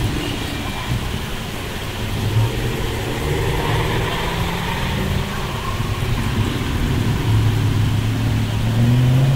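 A car engine running, its low note climbing in pitch near the end.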